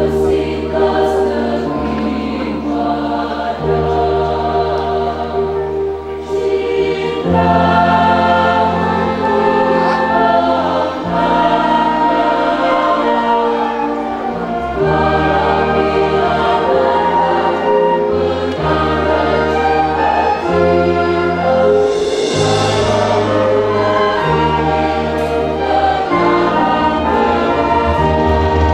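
Mixed choir singing a hymn in full chords, accompanied by an ensemble of flutes, violins, keyboard and electric bass. The bass note changes every second or two under sustained choral harmony.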